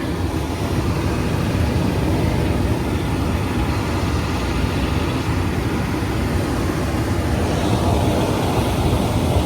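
Furnace blower running steadily on a call for cool: a loud, even rush of air with a low rumble, drawing through the return and its new filter.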